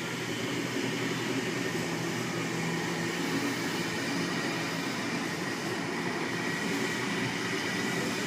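A Sydney Trains S set, an eight-car double-deck electric train, passing through the station: a steady rumble of wheels on rail with a low, even hum from the train.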